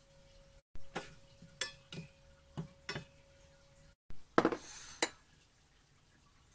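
A metal utensil clinks against a stainless steel saucepan five or six times over about two seconds. Then a ceramic bowl is set down on the countertop with a louder clatter and a brief scrape.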